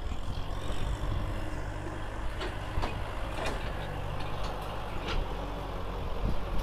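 Kubota M6040 tractor's diesel engine running under load as it pulls a loaded trailer through mud, with a few sharp knocks scattered through it.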